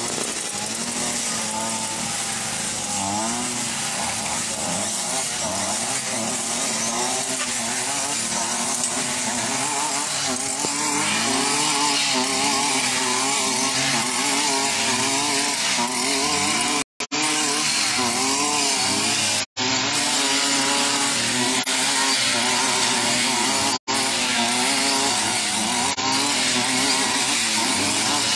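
Petrol brush cutter running under load as it cuts roadside grass, its engine pitch wavering up and down as the operator works the throttle through the weeds. The sound drops out for a split second a few times in the second half.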